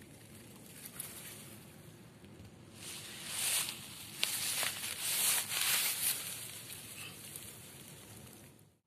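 Grass and rice plants rustling as they brush close to the microphone, in a run of bursts from about three seconds in to about six seconds, with one light click. The sound drops out suddenly near the end.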